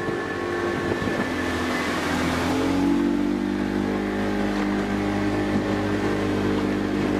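Small fishing boat's engine running under way and speeding up about two and a half seconds in, with a rush of wind and water over the hull.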